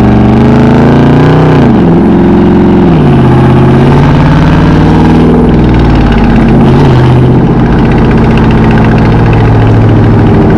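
Dodge Charger R/T's 5.7-litre HEMI V8 exhaust, fitted with Dynomax racing mufflers and the resonators deleted, running loud and deep as the car pulls away. Its pitch climbs and drops sharply three times as it shifts up through the gears, then holds steady at cruising speed.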